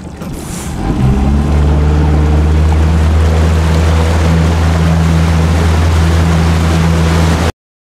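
Jon boat's motor throttling up about a second in, then running steadily at speed, with water rushing along the hull; it cuts off abruptly near the end.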